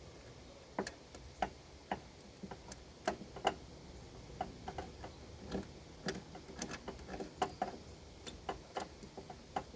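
Irregular light metallic clicks and taps, one or two a second, as the EGR valve's mounting bolts are worked tight by hand in a cramped engine bay.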